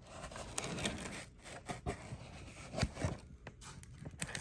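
Handling noise as a pistol and carbine are moved about: rustling and rubbing, with a couple of light knocks about three seconds in.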